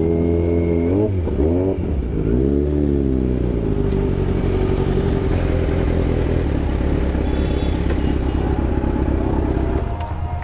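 Motorcycle engine revved up and down a few times, then running steadily at a raised note; the note changes and the sound drops slightly near the end.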